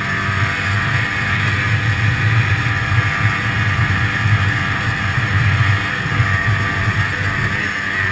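Snowmobile engine running steadily while riding along a snow trail, heard from on board the sled.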